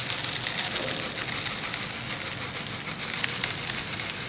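Small horticultural grit poured steadily from a plastic jug onto model railway track in a wooden tray: a continuous rattle of many small stones landing on the sleepers and the building ballast bed.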